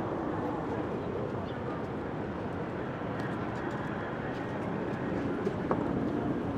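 Pigeons cooing over a steady hum of city street noise, with one short sharp tick about five and a half seconds in.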